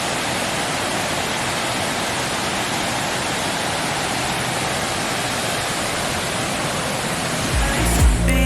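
Waterfall rushing in a steady, even roar. Background music with a heavy bass comes in near the end.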